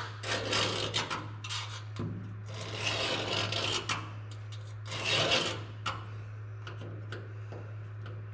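Steel scribe scratching a cut line onto the truck cab's sheet metal along the edge of a patch panel, in three or four rough scratching strokes, quieter after about six seconds. A steady low hum runs underneath.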